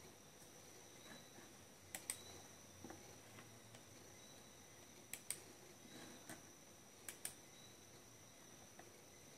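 Computer mouse clicking: three pairs of quick, sharp clicks, a few seconds apart.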